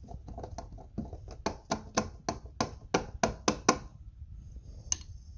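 Small plastic cup tapped over and over against the mouth of a plastic water bottle, knocking citric acid crystals into the water: a quick run of sharp plastic taps, about three a second, loudest in the middle, with one last tap near the end.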